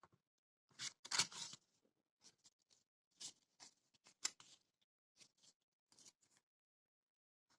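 Packaging being handled and opened: short rustles, scrapes and sharp clicks in irregular bursts, the loudest about a second in.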